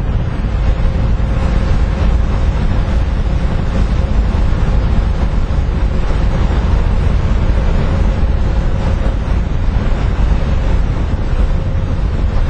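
Wind buffeting the microphone in a loud, steady low rumble, with a faint steady hum underneath.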